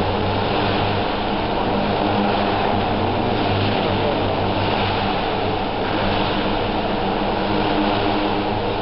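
Electric Align T-Rex radio-controlled helicopter's rotor and motor running in flight, heard close from a camera mounted on the helicopter: a steady low hum under a loud rushing noise of blades and air.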